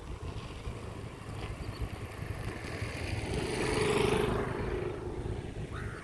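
A motor vehicle's engine passing by, swelling to its loudest about four seconds in and then fading, over a steady low rumble.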